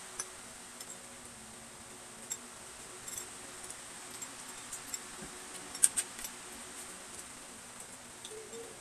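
Scattered light clicks and clinks of spoons, a fork and chopsticks against bowls and plates as two people eat, the sharpest pair of clicks a little past halfway.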